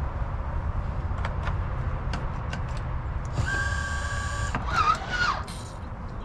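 Minn Kota Ulterra trolling motor's electric stow/deploy drive running briefly: a few light clicks, then a steady whine for about a second that wavers in pitch for another second before stopping. Wind rumble on the microphone throughout.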